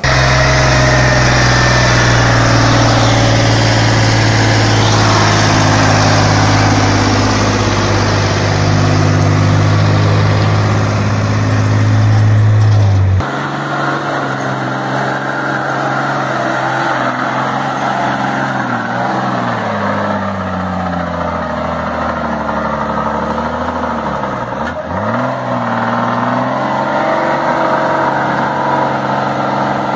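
A heavy truck's engine running hard at a steady pitch as its chained wheels spin in snow. About 13 seconds in it cuts off suddenly and gives way to a bus engine revving up and down, with a dip near the end, as the bus's wheels spin in mud.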